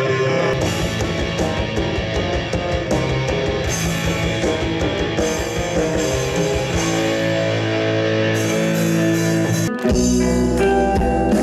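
Live metal band playing loud on an open-air stage: electric guitars and bass over rapid drumming, then held chords. The sound changes abruptly shortly before the end.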